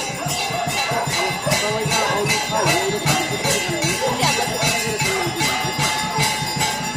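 Hindu evening prayer at a Shiva temple: bells and small metal percussion struck in a steady rhythm of about three strikes a second over a drum beat, with voices chanting along.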